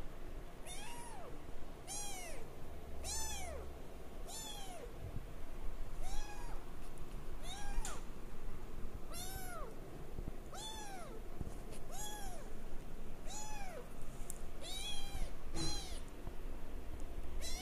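Three-week-old Singapura kitten mewing over and over, a thin high cry that rises and falls in pitch, about one every second and a bit.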